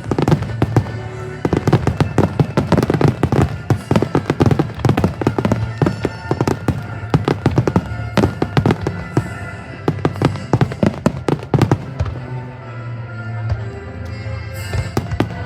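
Rapid fireworks bangs and crackling over loud music. The bursts thin out about twelve seconds in, leaving mostly the music.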